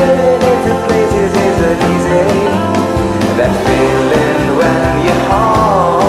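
Background music: a song with a steady beat and a singing voice.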